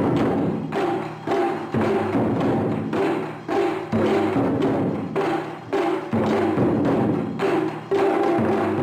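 Taiko drums struck hard in a steady rhythm, about two strokes a second, each stroke booming and ringing briefly before the next.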